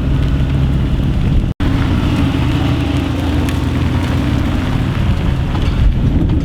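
Mercedes-AMG GT R's twin-turbo V8 exhaust running loud and fairly steady, with a crackly edge; it cuts out for an instant about a second and a half in.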